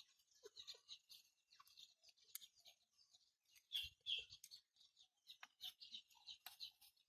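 Faint, irregular high chirps, like small birds calling, go on throughout. There are a few light clicks, and two soft knocks about four seconds in are the loudest moment.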